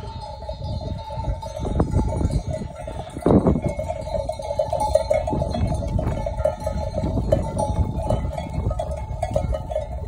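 Bells on a walking flock of sheep jangling continuously, over a low, irregular rumbling noise.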